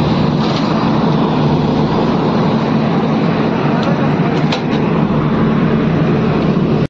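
Railway OHE tower car running along the track: a steady engine hum under a constant rumble and rush of noise.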